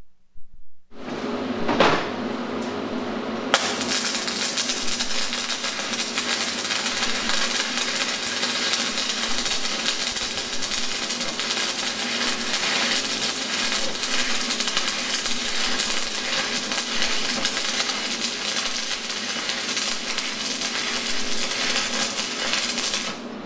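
MMA (stick) welding arc from an inverter welder in ARC mode: the arc strikes about a second in, fills out a couple of seconds later and then crackles and sizzles steadily as the electrode burns, cutting off abruptly just before the end.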